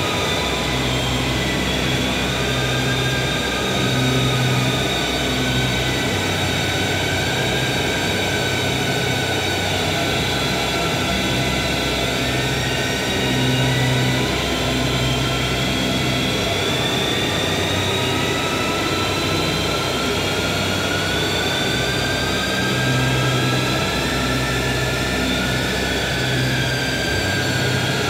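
Live experimental drone music: a bowed violin over a dense, steady wall of noise, with slow gliding high tones and a low note pulsing on and off.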